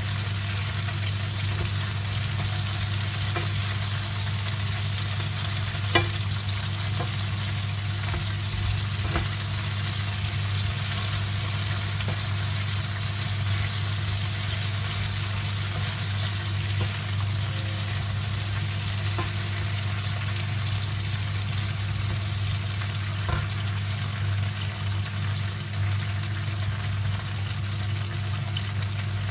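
Cut peppers sizzling steadily as they fry in a pan, with a few sharp knocks of a wooden spoon against the pan, the loudest about six seconds in. A steady low hum runs underneath.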